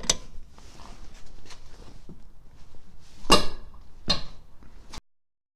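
Lug wrench work on a car's lug nuts while they are being broken loose: low handling noise, then two loud, short, sharp noises less than a second apart about three seconds in. The sound cuts off abruptly near the end.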